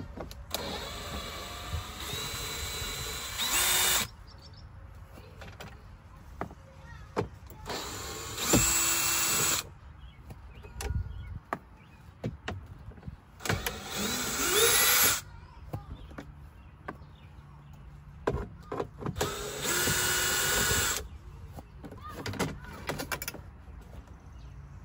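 DeWalt 20V cordless drill backing out screws from a dashboard panel, run in four separate bursts of a couple of seconds each, its whine rising in pitch as it spins up. Short clicks and knocks of plastic trim and screws being handled fall between the bursts.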